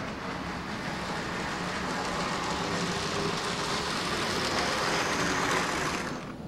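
HO scale model train backing along the track: motor hum and wheels running on the rails, growing a little louder as it nears, then stopping about six seconds in.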